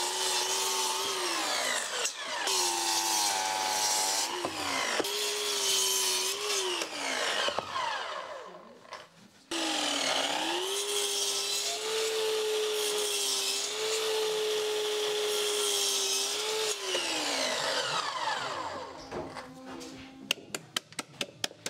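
Sliding mitre saw making repeated shallow trenching passes across a softwood stud, the blade held at a depth stop to cut a recess: the motor whine starts and holds during each pass and falls away when the trigger is released, about five times, with one long pass in the middle. Near the end, a run of sharp clicks as the waste is cleared out with a chisel.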